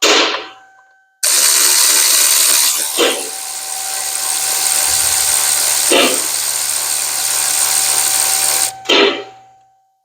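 Cordless electric ratchet driving a 13 mm deep socket on a swivel, running steadily for about seven seconds. It starts about a second in and stops near the end, with a short metal sound just before it starts and just after it stops.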